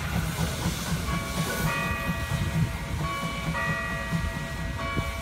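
E 3/3 steam tank locomotive and wagon rolling away at low speed while shunting, a steady low rumble. Background music comes in about a second in, a melody of sustained notes over the rumble.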